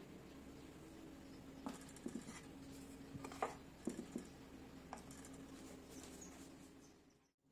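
Faint light taps and clicks as a ceramic mug is handled and set down on a wooden tray, over a faint steady hum.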